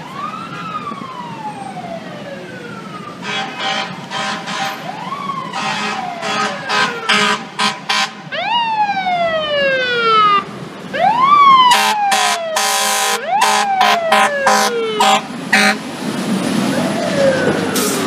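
FDNY fire truck responding with a mechanical siren that repeatedly winds up quickly and coasts down slowly in wails. Over the middle stretch the wails are punctuated by many short, loud air horn blasts.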